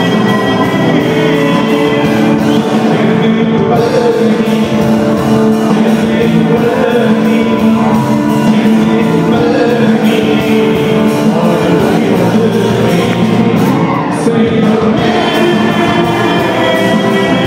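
Rock band playing live: a male singer over electric guitars and drums with a steady beat, picked up loud by a phone in the audience.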